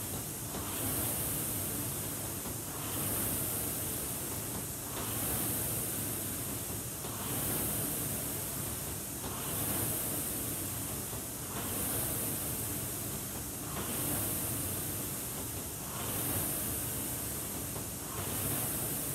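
Concept2 rowing machine's air-resistance flywheel spinning, its rush of air swelling and fading with each stroke, about one stroke every two seconds at a steady rowing rhythm.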